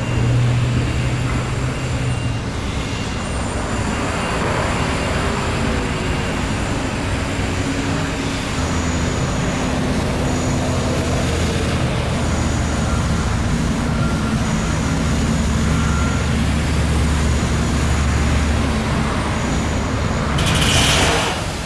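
Steady road traffic going by, with engine hum from passing vehicles rising and falling. A brief louder rush of noise comes near the end.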